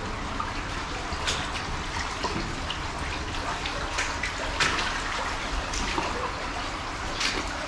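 Shallow water trickling along the floor of a corrugated-iron culvert, with irregular splashing footsteps as people wade over the corrugated sheets.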